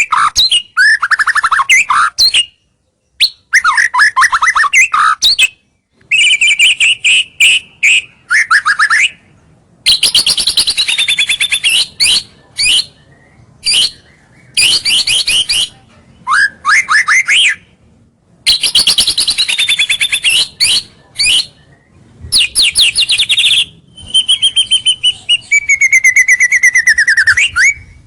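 White-rumped shama (murai batu) singing loudly in quick varied phrases of rapid repeated notes, trills and whistles, separated by short pauses. A long falling whistle comes near the end. This is full territorial song of the kind played to lure rival males in close.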